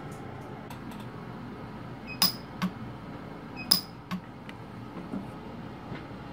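PUK micro pulse-arc welder firing two sharp weld pulses on sterling silver, about a second and a half apart, each with a short high ring and followed by a fainter click.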